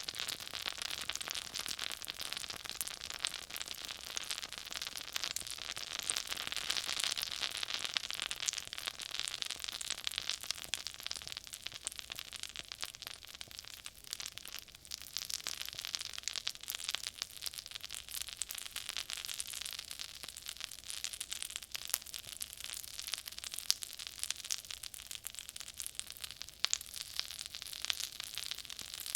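Oil and butter frying in a cast iron skillet: a steady sizzle with dense crackling and scattered louder pops and splats.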